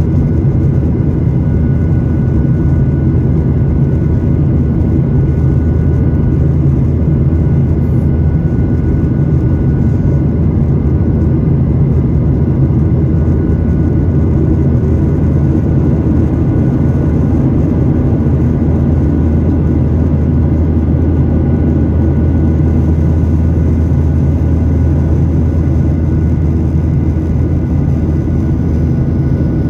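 Cabin noise of a Boeing 737 MAX 8 climbing after takeoff. Its CFM LEAP-1B turbofans run steadily at climb power, heard as a low, even rumble and rush of air with a faint steady high hum over it.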